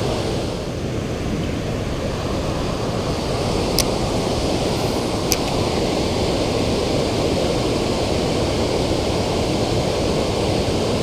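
Steady rush of flowing river water, with two short sharp clicks about a second and a half apart near the middle.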